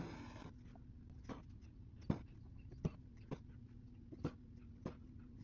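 Needle piercing linen stretched taut in an embroidery hoop and the thread being drawn through while satin-stitching: a string of about six faint, sharp clicks, irregularly spaced half a second to a second apart, over a low steady hum.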